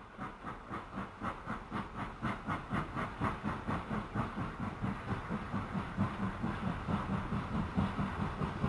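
Model railway train of coaches rolling past on the track, its wheels clicking over the rail joints in a fast, steady rhythm over a continuous rolling rumble. It grows louder over the first few seconds.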